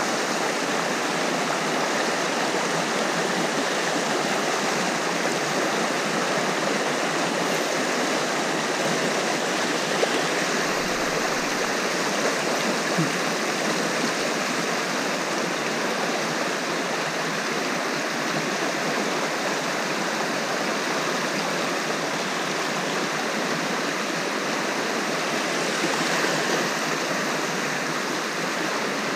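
The Garona river's flowing water rushing steadily.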